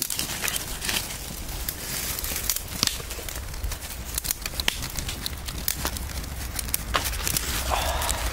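Dry leaves, birch bark and twigs rustling and crackling as they are handled on the forest floor, with scattered sharp clicks.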